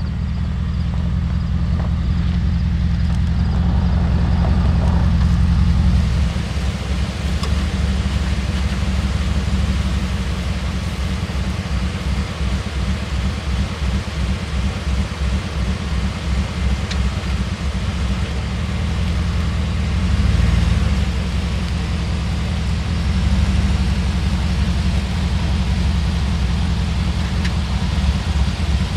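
Chevrolet Silverado pickup's engine running at idle, rising briefly in speed a few times as the truck creeps forward onto a plastic leveling block under its front tire.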